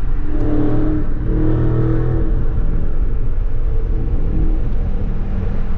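Dodge Charger Scat Pack's 392 Hemi V8 and road noise at highway speed, heard from inside the cabin. The engine note pulls up a little in the first couple of seconds as the car gains speed, then settles into a steady rumble.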